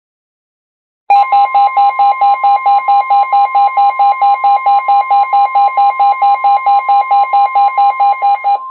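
Midland WR-120 weather radio going into alert: a steady tone near 1 kHz, the NOAA Weather Radio 1050 Hz warning alarm tone, sounds under a loud pulsing electronic alarm beeping about four times a second. It starts about a second in, and the pulsing stops just before the end while the steady tone carries on. It signals that a new warning is about to be read.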